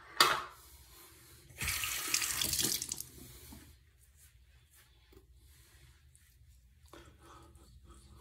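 Bathroom tap running into a sink for about a second and a half, then shut off, after a sharp click right at the start.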